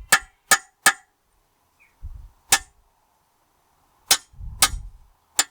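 Hammer blows on metal parts of a David Brown 990 tractor's rear axle case, sharp ringing clangs: three in quick succession, then four more spaced out, with duller low knocks between them, as the diff lock actuator is worked out.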